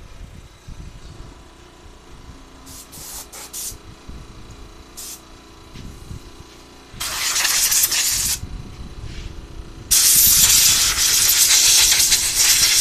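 Compressed air from an air-compressor blow gun hissing in bursts as it blows dust off an automotive horn relay: a few short puffs, then a burst of about a second and a half, then a longer blast of about three seconds near the end.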